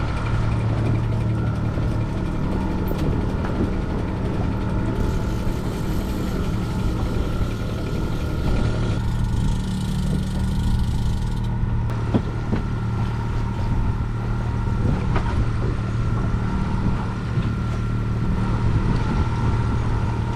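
Boat engine running steadily at trolling speed: a low, even hum, with a few scattered clicks and knocks.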